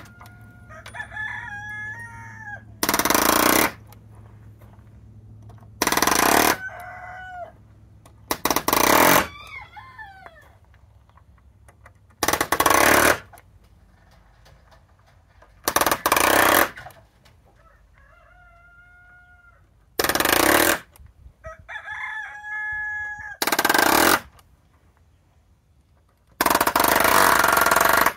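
RIDGID pneumatic palm nailer driving 8-penny sinker nails into pallet-wood boards, in eight loud bursts of about a second each, one every three to four seconds. Roosters crow in the gaps between the bursts.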